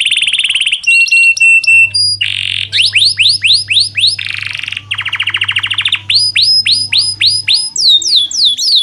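Canary in full song: a rapid sequence of phrases, each one a run of the same note repeated quickly before the bird switches to the next. The phrases move between buzzy trills, sliding falling whistles at about four a second, and short steady piping notes.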